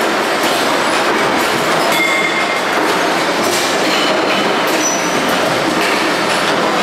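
Loud, steady din of a metal-working workshop: presses and other machinery running, with scattered clicks and a few short metallic rings.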